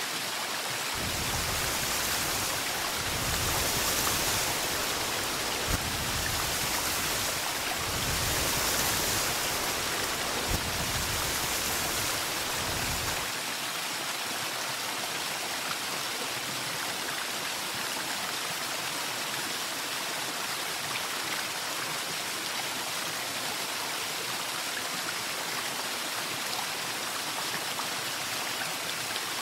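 Steady rushing of running water. A low rumble lies under it for the first twelve seconds or so, then drops away, leaving the even water sound.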